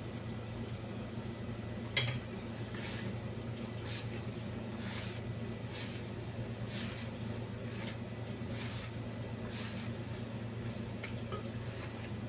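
Hand rubbing and squeezing crumbly piyaya dough in a plastic bowl: a soft, dry scraping rustle with each stroke, over a steady low hum. One sharp click about two seconds in.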